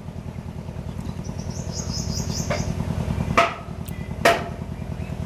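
Two quick, sharp sneezes about a second apart, over a steady low rhythmic pulsing like a motor running. A short high bird trill sounds briefly about a second in.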